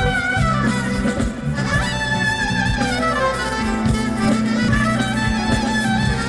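Instrumental music: a wavering, gliding melody over held low bass notes and a regular beat.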